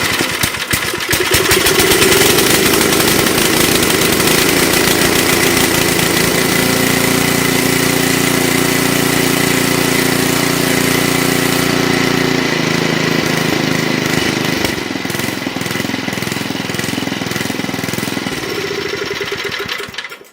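Simplicity snowblower's 5 hp Briggs & Stratton single-cylinder engine running on choke just after starting, its note changing about twelve and again about fifteen seconds in. It cuts off abruptly at the end when the horn button fitted as a kill switch is pressed.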